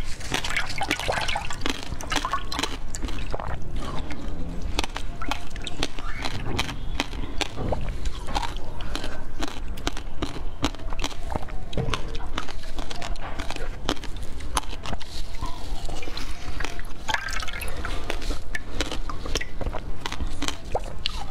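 Close-miked wet mouth sounds from eating a soft, clear jelly coated in passion fruit pulp: slurping, sucking and squelching, with many quick wet clicks and smacks.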